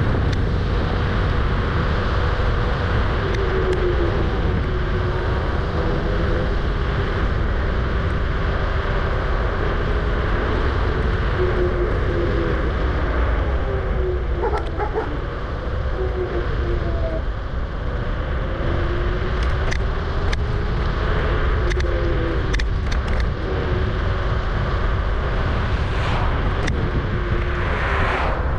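Riding noise from a Kugoo G-Booster electric scooter: steady wind and road rumble with a wavering whine that rises and falls in pitch. A few light clicks come later on, and there is a louder rush near the end.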